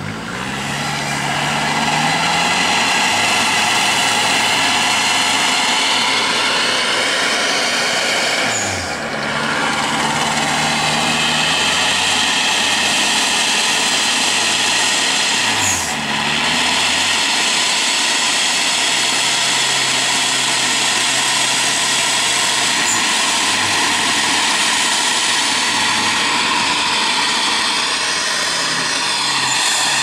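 Toyota Hilux pickup's diesel engine running at high revs under load, its pitch stepping up and down. It drops twice, briefly, and climbs again: once about a third of the way in and once just past the middle.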